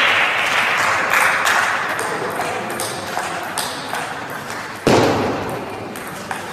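Table tennis balls clicking, hit by bats and bouncing on tables, from the match and the neighbouring tables in the hall, with one louder sudden thump about five seconds in.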